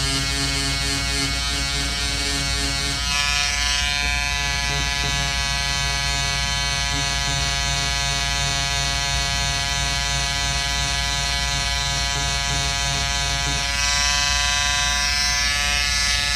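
Wahl Peanut electric clipper running with a steady hum as its blade is worked over machine-embroidered stitches on a shirt, shaving them out. Its sound shifts about three seconds in and again near the end.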